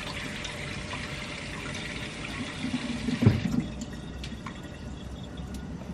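Kitchen faucet running as hands are rinsed under the stream, the water shutting off about halfway through. A single dull thump follows a moment later, then quiet handling sounds.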